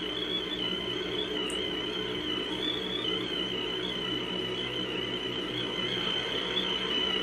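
Steady static-like noise: an even hiss with a high, thin whine that wavers slightly in pitch and a faint low hum beneath, going on without a break; its source could not be found.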